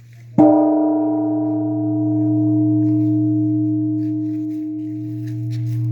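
Large bronze Korean temple bell (beomjong) struck once by a wooden log about half a second in. It rings with a deep hum and higher overtones that swell and fade in slow pulses, over the dying hum of the previous stroke.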